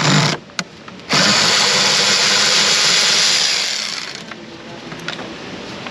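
Cordless power tool on a socket extension blips briefly, then runs steadily for about two and a half seconds and winds down as it backs out an ignition-coil Torx bolt.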